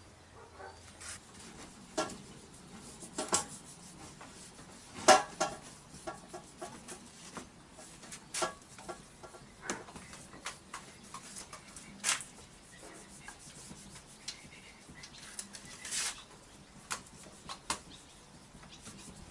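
Metal motorcycle exhaust parts handled and rubbed at a wooden workbench: a faint scraping run broken by scattered sharp knocks and clinks of metal. The loudest knock comes about five seconds in.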